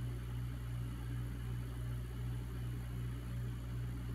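Steady low hum with a faint hiss above it: background room tone.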